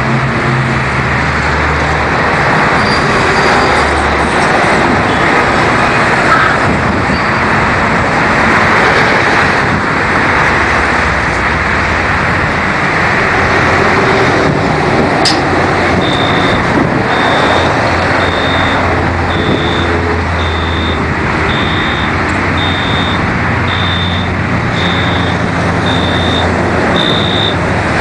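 Steady loud noise like traffic or running machinery. From about halfway through, a high electronic beep repeats about once a second.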